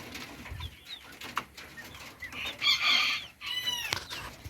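Chickens clucking and chirping, with a loud squawk about halfway through followed by a short high call.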